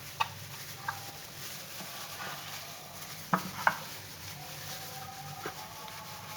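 Hands massaging a raw mutton leg coated in salt and vinegar: wet rubbing and squelching, with a few short knocks against the dish, two close together about halfway through.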